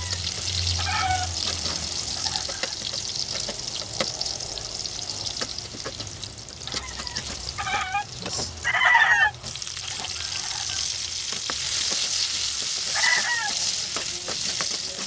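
Sliced ginger sizzling in hot oil in a wok, with a spatula scraping and tapping against the pan as it is stirred. A few short high voice-like calls break in, the loudest about nine seconds in.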